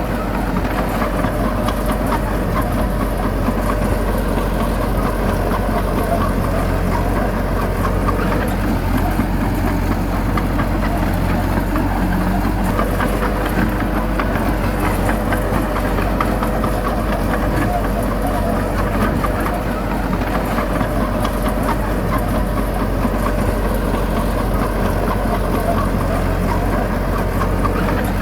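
Heavy diesel earthmoving machinery engine running steadily at a constant speed.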